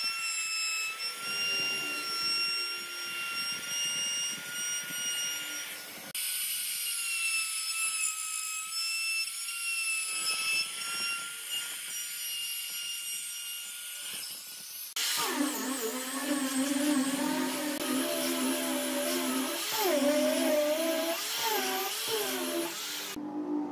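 Compact trim router running with a steady high-pitched whine as it routes into wood. About two-thirds of the way through, a handheld sanding disc takes over, with a lower hum whose pitch wavers as it is pressed against the wood.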